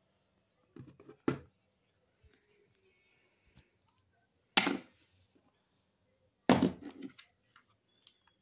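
A few separate thumps and knocks with quiet between them, the loudest about four and a half and six and a half seconds in.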